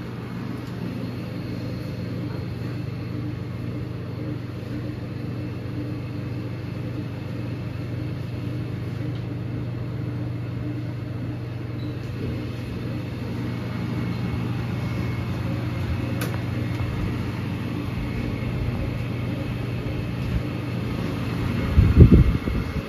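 Steady low machine-like hum in a confined metal interior, with a few heavy low thumps near the end.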